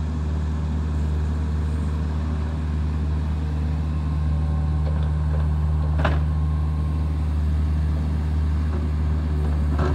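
Kobelco mini excavator's diesel engine running steadily while it digs, with one short sharp sound about six seconds in.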